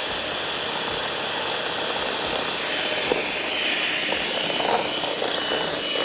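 Anex electric hand mixer running steadily, its beaters whipping instant coffee, sugar and hot water into dalgona coffee foam.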